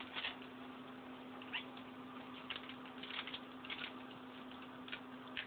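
Newspaper crackling and tearing in short, irregular bursts as a pet chews on it, over a steady low hum.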